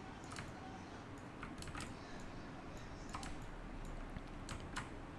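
A few faint, irregular clicks from a computer keyboard and mouse, over a low steady hum.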